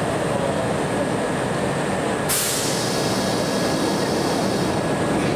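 Kintetsu 7000-series subway train standing at the platform, its equipment running under a steady station din. About two seconds in, a sudden hiss of released air starts and fades a couple of seconds later.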